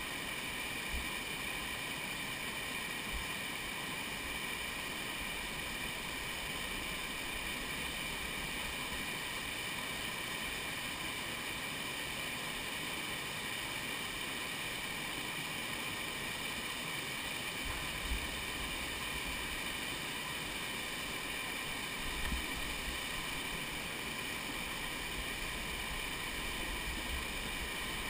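Steady rushing of a fast jungle river tumbling over rocks as white-water rapids. A few brief low bumps come in past the middle.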